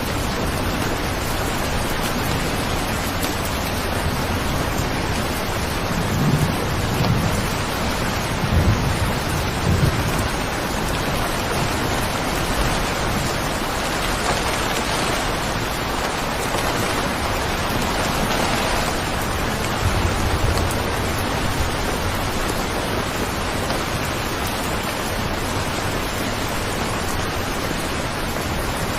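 Steady heavy rain, an even hiss of falling water, with a few low rumbles swelling briefly near the middle.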